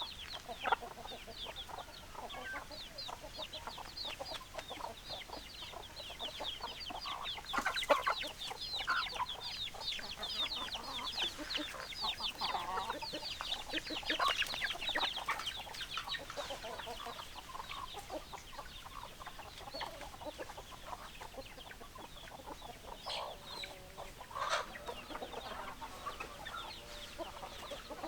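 A flock of chickens clucking and calling, with a dense stream of short, high, falling chirps throughout and scattered lower clucks, busiest in the middle stretch.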